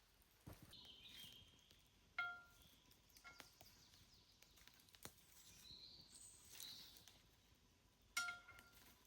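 Quiet room with two light clinks of dishware, each ringing briefly, about two seconds in and again near the end, and faint bird chirps between them.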